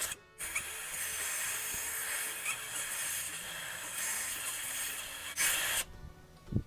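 Aerosol spray cleaner hissing in a long, steady spray with a louder short burst near the end, flushing water and grease out of a wiring connector.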